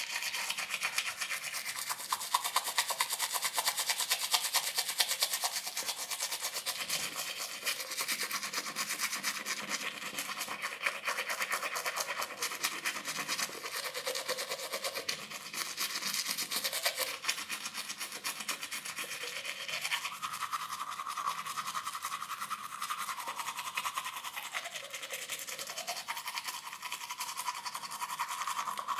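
Teeth being brushed with a toothbrush: continuous quick back-and-forth scrubbing of bristles, its tone shifting now and then as the brush moves around the mouth.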